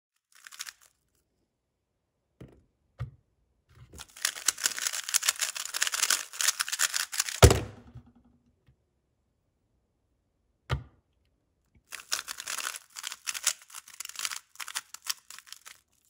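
MoYu RS3 M 2020 speedcube being turned at speed: a dense run of rapid plastic clicks lasting about three and a half seconds, ending in a sharp thump as the hands slap down on the Speed Stacks timer pads to stop it. After a pause and a single knock, a second fast run of clicks follows near the end.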